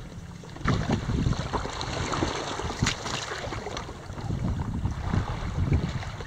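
Wind buffeting the microphone in gusts, picking up about a second in, with choppy water lapping against a paddleboard and a few small knocks.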